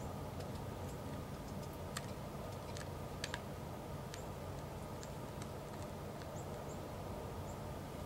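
Faint, irregular sharp clicks and ticks, a few a second, over a steady low hum, with the loudest pair about three seconds in.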